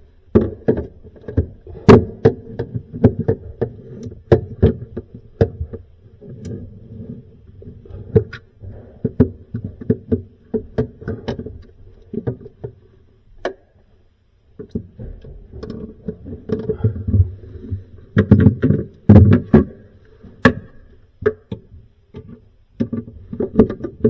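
Irregular clicks, knocks and rattles of metal parts being handled and fitted while freezer drawer slides are worked on, with a brief pause partway through and a denser run of louder knocks near the end.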